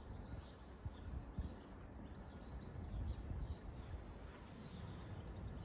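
Quiet outdoor background: faint bird chirps over a low, steady rumble.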